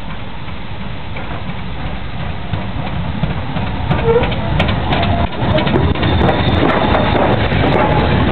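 Stanier Black Five 4-6-0 steam locomotive 45379 drawing into a station with its train: a steady rumble that grows louder from about three seconds in, with clanks and short squeals.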